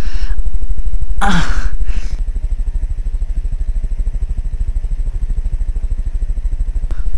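Motorcycle engine running steadily with an even, fast low throb, a little quieter after about two seconds. A short falling vocal sound comes about a second in.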